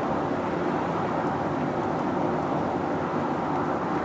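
Steady road and tyre noise of a Honda Freed+ Hybrid cruising, heard from inside the cabin, an even rush with no distinct engine note.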